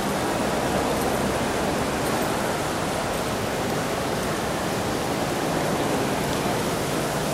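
Steady rush of falling water from a fountain, an even hiss with no breaks.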